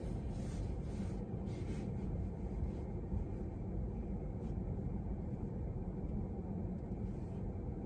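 Low, steady rumble of a car heard from inside its cabin as it creeps forward in slow traffic, with a few faint ticks in the first couple of seconds.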